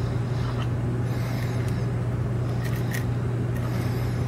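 A steady low hum with hiss, and over it a few faint light clicks from a lock pick working the pins of a pin-tumbler lock cylinder.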